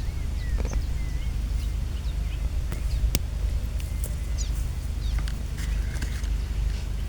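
Small birds chirping in short, scattered calls over a steady low rumble, with a few sharp clicks about three seconds in.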